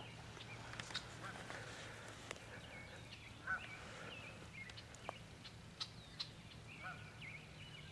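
Faint, scattered bird calls: short, separate chirping and honk-like notes, with a few soft clicks in between.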